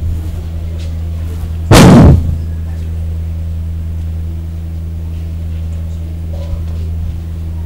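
Steady low electrical hum from a sound system, broken about two seconds in by one loud, distorted thump lasting about half a second.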